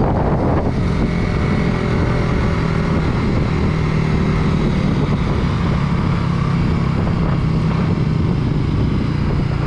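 Suzuki Raider 150 Fi's single-cylinder engine running at a steady, even speed while cruising, with wind rushing over the helmet-mounted microphone.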